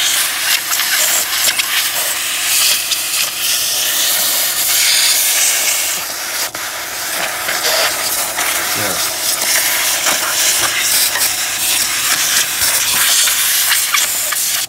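Compressed air hissing steadily from a pistol-grip air blow gun, blasting into a metal CVT oil pan to clean it. The hiss stops abruptly near the end.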